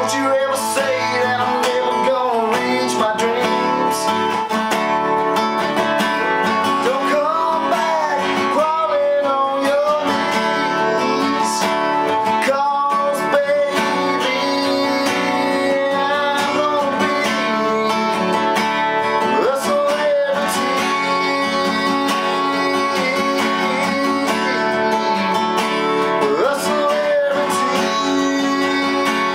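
A man singing while strumming a capoed acoustic guitar, a steady chord rhythm under a country-style melody.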